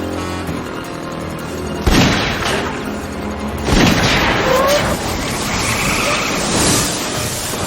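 Two loud booms, the first about two seconds in and the second nearly two seconds later, each followed by a noisy crashing wash, over background music.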